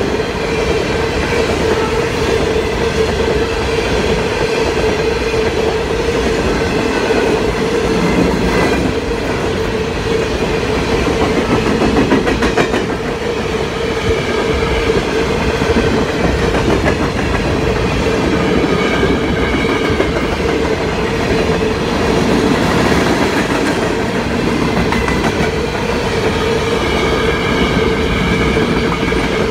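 Freight train of covered hopper cars rolling past steadily, wheels clicking over the rail joints with a louder run of clacks near the middle. A steady tone runs under the rumble throughout.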